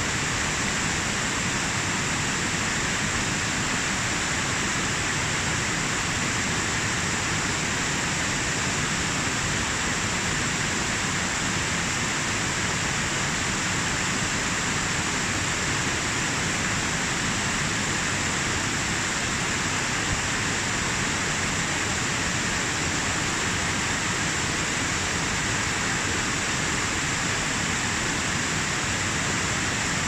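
Mountain waterfall cascading over mossy boulders: a steady, even rush of falling and splashing water.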